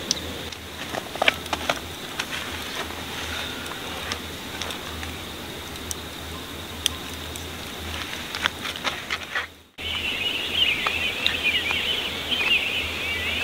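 Sparse light clicks and ticks over a faint low hum, then, after a break about ten seconds in, a dense high chirping and trilling chorus of early-morning birds and insects.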